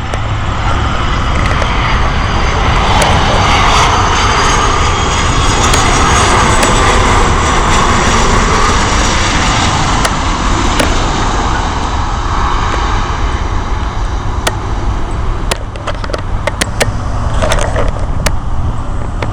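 Airliner engines on landing approach as the plane passes over, the engine noise building to a peak a few seconds in and then slowly fading, with faint gliding whine tones.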